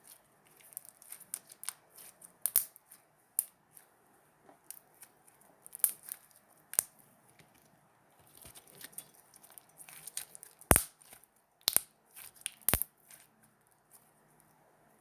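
Slime being handled: irregular sharp clicks, crackles and pops, with three loud pops about a second apart in the last third.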